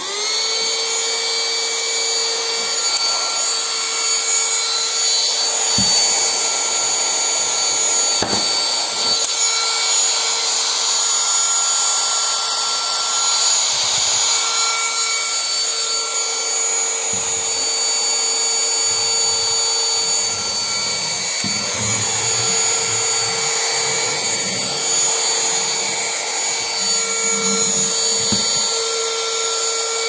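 AutoBot ABV001 cordless handheld car vacuum running: its small high-speed motor whines steadily over the hiss of rushing air. A few dull knocks come from the unit being handled.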